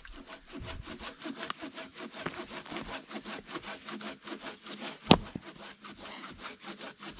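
Hand saw cutting through a log in quick, even strokes. A single loud hatchet chop splits firewood a little after five seconds in.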